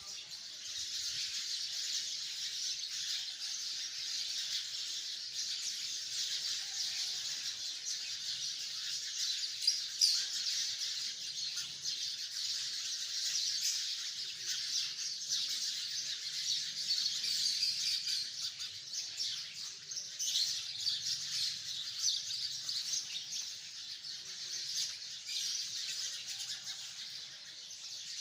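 A large flock of sparrows chirping together in a tree: a dense, continuous chorus of overlapping high chirps with no pauses.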